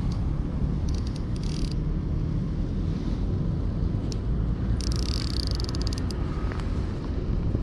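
Baitcasting reel clicking rapidly in two short bursts, about a second in and again around five to six seconds, as line is worked on a hooked catfish. A steady low rumble runs underneath.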